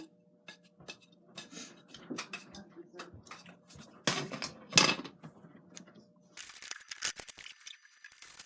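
Handling noises: scattered clicks and taps of tools and materials being picked up and set down, with two louder scraping rustles about four to five seconds in, then a steady hiss near the end.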